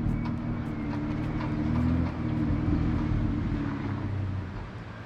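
A motor vehicle's engine running steadily and fading, growing gradually fainter through the few seconds.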